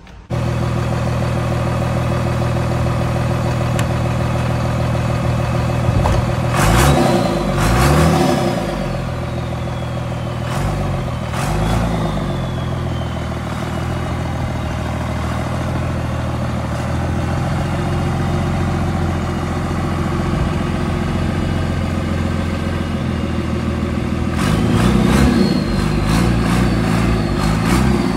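Lifted second-generation Dodge Ram pickup's engine running as the truck drives, revved hard twice, about a quarter of the way in and again near the end. A high whine rises with each rev and then slowly fades away.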